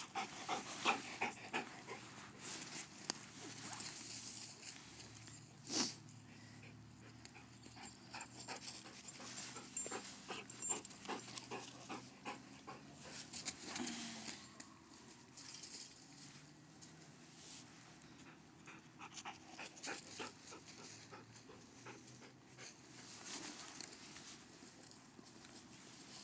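Yellow Labrador retrievers panting while they play, with irregular rustling and crunching as they scuffle through dry fallen leaves and grass, and one sharp click about six seconds in.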